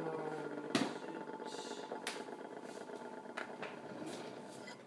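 Faint room noise with a few scattered short clicks and knocks, the clearest about a second in.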